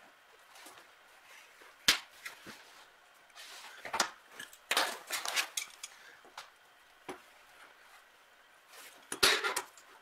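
Handling sounds at a workbench: scattered sharp clicks and knocks with rustling as cloth-braided wire is handled, and the loudest clatter near the end as a pair of slip-joint pliers is picked up and closed on the wire splice.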